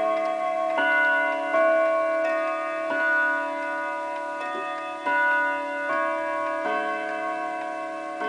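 Chiming clock's carillon movement playing a melody on tuned chime rods: hammers strike notes one after another, each note ringing on and overlapping the next.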